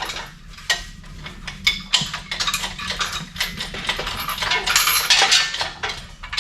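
Metal hand tools clinking and rattling against metal: an irregular run of light metallic clicks and knocks, busiest about two thirds of the way through.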